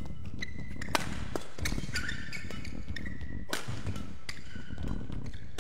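Badminton rally: rackets striking the shuttlecock in sharp cracks a second or two apart, with shoes squeaking in short high squeals and feet thudding on the court mat.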